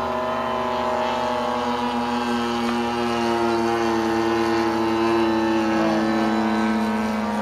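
Zenoah G-45 single-cylinder two-stroke petrol engine and propeller of a large radio-control scale biplane in flight, a steady engine drone. It grows slightly louder about two-thirds of the way through as the plane flies closer.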